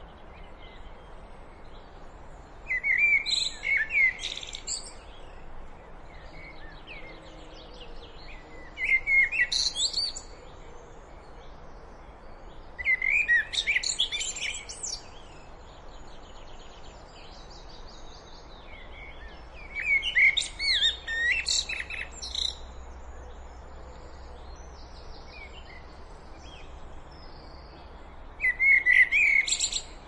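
Eurasian blackbird singing five separate phrases with pauses of a few seconds between them. Each phrase starts with lower notes and ends in a rapid run of higher, squeaky notes.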